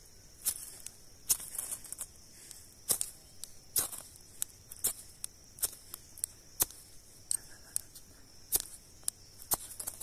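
Repeated short, sharp scrapes of a striker dragged down a flint fire-starter rod, about one a second, throwing sparks onto a cotton ball to catch tinder.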